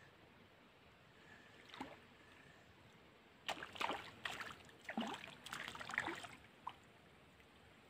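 A hooked fish splashing and thrashing at the water's surface as it is reeled in to the bank. One small splash comes about two seconds in, then a quick run of splashes lasting about three seconds from around the middle.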